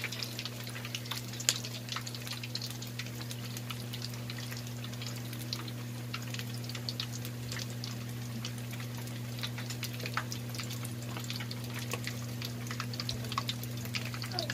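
Boiled pork hock deep-frying in hot oil: steady sizzling with many scattered pops and crackles. A steady low hum runs underneath.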